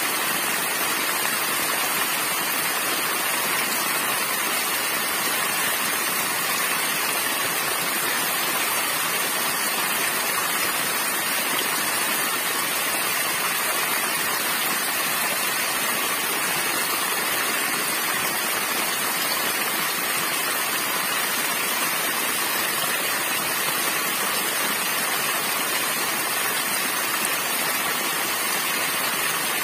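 Small waterfall, thin streams of water falling from a rocky ledge and splashing into a shallow pool: a steady, even rush of falling water, mostly bright hiss.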